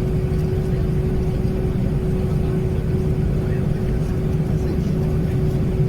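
Airbus A319 cabin noise while taxiing after landing: a steady low rumble with a constant hum running through it.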